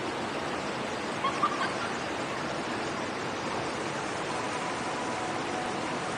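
Steady rush of river water running over rapids. A few short, higher sounds stand out about a second and a half in.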